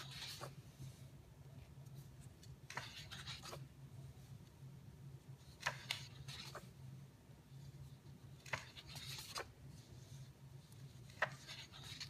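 Pages of a large hardcover photo book being turned by hand, about every three seconds: each turn a short paper rustle and swish with a crisp flick as the page lands. A low steady hum runs beneath.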